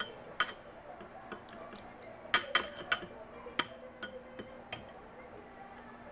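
Light clinks and taps of an eating utensil against dishware, about a dozen irregular strikes with a quick cluster about two to three seconds in, stopping after about five seconds.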